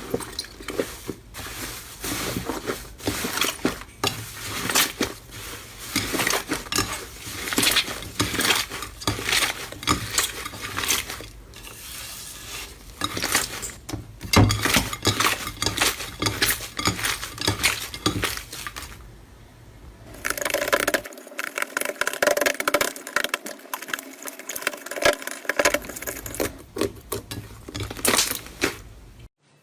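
Slime being squeezed, pressed and stretched by hand, giving a dense run of crackles, pops and sticky clicks. About two-thirds of the way through the sound changes to a thinner crackle, as a different batch of slime is worked.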